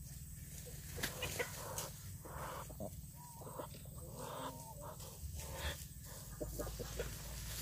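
Muscovy ducks mating: short, irregular calls from the birds with brief rustling bursts as the drake mounts the duck, over a low steady hum.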